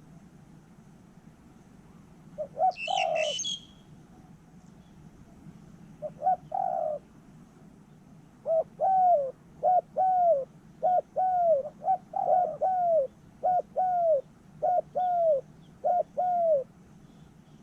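Spotted dove cooing: low, arched coos, a few at first, then a steady repeated series through the second half. A short, high chirping call from a smaller bird comes about three seconds in.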